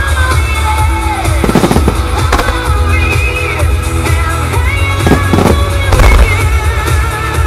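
A starmine firework barrage going off in time with music: deep booms under a run of sharp bangs, several of them, the loudest about six seconds in, while the music plays throughout.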